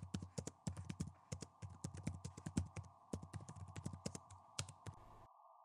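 Typing on a computer keyboard: a quick, irregular run of key clicks that stops near the end, over a faint steady background noise.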